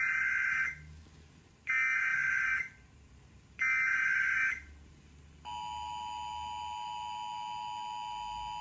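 Emergency Alert System tones. First come three one-second bursts of the SAME digital header's warbling data tones, each about a second apart. Then, about five and a half seconds in, the steady two-tone EAS attention signal starts and keeps sounding.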